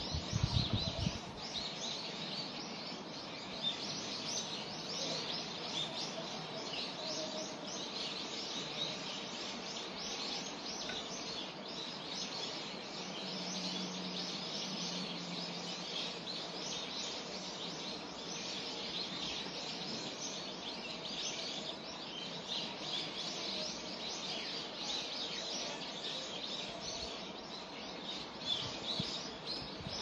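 A chorus of small songbirds chirping and twittering continuously, with many short high calls overlapping. There is a brief low rumble in the first second, like wind buffeting the microphone.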